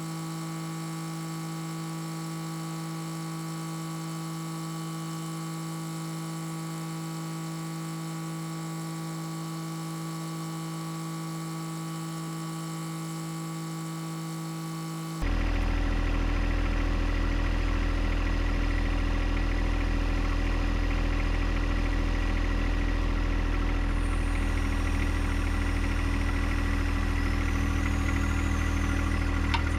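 A steady, even hum, then about halfway through an abrupt switch to the louder, deeper, steady running of the John Deere 1025R compact tractor's three-cylinder diesel engine.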